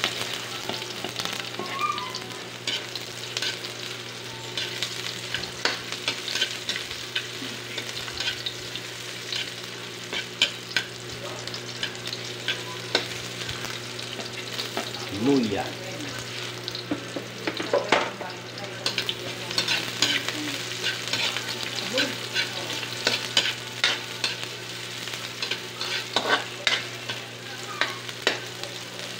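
Chopped garlic, onion and ginger sizzling in an aluminium wok, with a metal ladle scraping and clinking against the pan as it is stirred, over a steady low hum.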